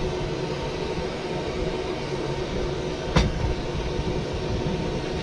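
Lampworking bench torch burning steadily while a large glass tube is heated in its flame. A single sharp knock comes about three seconds in.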